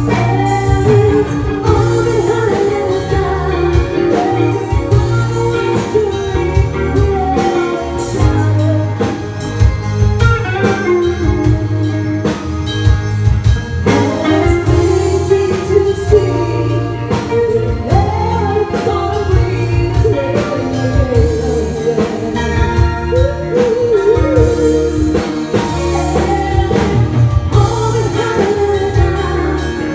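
Live band playing a song: female voices singing a wavering melody over electric guitar, keyboard and a drum kit, with a strong, steady bass line underneath.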